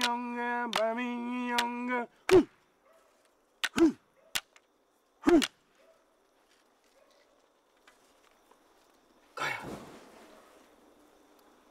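A deep, steady drone with regular sharp clicks stops about two seconds in. Four loud, sharp knocks follow over the next few seconds. Near the end a rush of noise swells up as the campfire flares, then slowly dies away.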